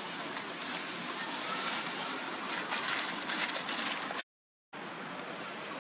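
Dry leaf litter rustling and crackling as young long-tailed macaques scuffle in it, a little louder about two and a half to three and a half seconds in. The sound cuts out completely for a moment about four seconds in.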